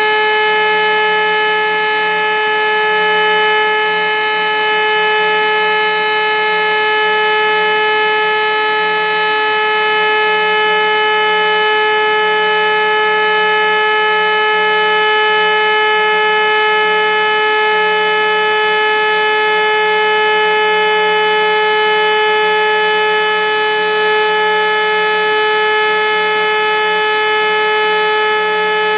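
Elektror E57 electric civil-defence siren sounding one loud, steady tone at full speed, with no rise or fall in pitch. This is the continuous tone of the German all-clear (Entwarnung) signal.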